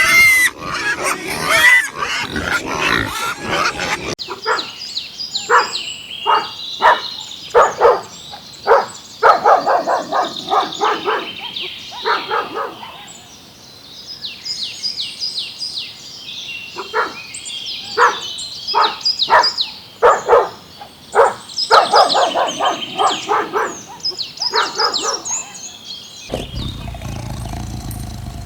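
A dog barking over and over in short barks, in two runs with a pause in between.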